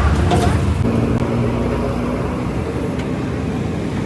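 Motor vehicle engine running with a steady low rumble, a faint held tone in its first half and a few light clicks.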